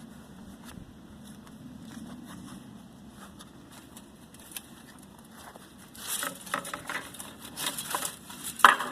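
Cut copper windings from a motor armature being handled and dropped, clinking and rattling from about six seconds in, with one sharp clank near the end; before that only faint scattered clicks.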